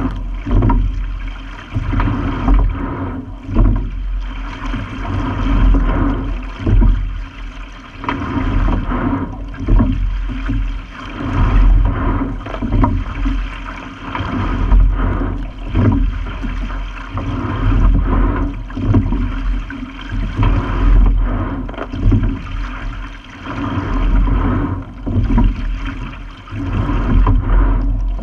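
Single sculling shell under way: water rushing along the hull, swelling with each stroke in regular surges about every two seconds, over a low rumble.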